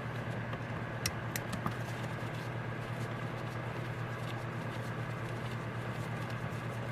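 A few light clicks and ticks of small metal carburetor parts being handled, two sharp ones about a second in, over a steady low hum.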